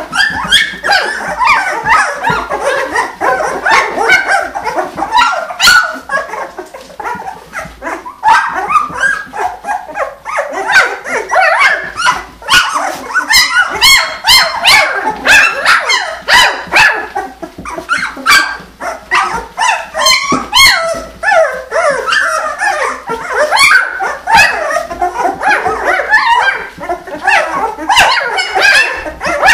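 A litter of 16-day-old puppies making many small, high, overlapping cries and squeaks, thick throughout. At this age they are just beginning to find their voices.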